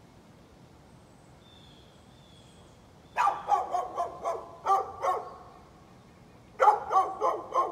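A dog barking in two quick runs of sharp barks, about three to four a second. The first run starts about three seconds in and lasts about two seconds; after a short pause, a second run begins near the end.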